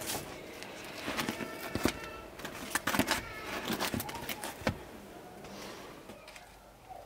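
Crusty tandoor bread loaves being handled and set down on a cloth-covered table: a run of sharp knocks and rustles, about half a dozen, the last a little under five seconds in.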